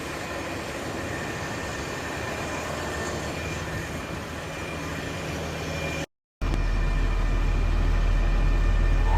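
Heavy diesel truck running steadily, engine and road noise. About six seconds in there is a short gap, and then a deeper, louder engine rumble.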